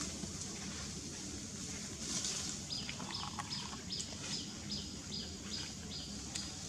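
A bird calling: a run of about ten short, high notes at an even pace, starting a few seconds in, over a steady outdoor hiss.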